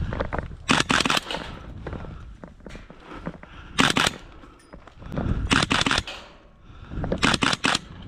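Airsoft guns firing in four short bursts of a few rapid shots each, with sharp cracks and pauses between bursts.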